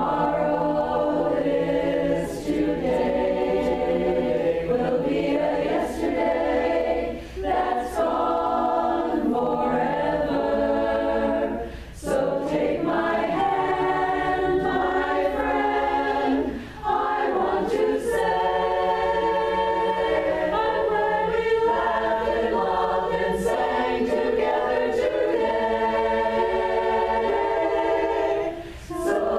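A cappella chorus of mostly women singing together in harmony, with a few brief breaks between phrases.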